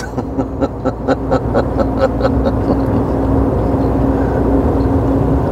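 A man laughing in short repeated bursts, about four or five a second, that fade out over the first three seconds, over the steady drone of a DAF truck cab while driving.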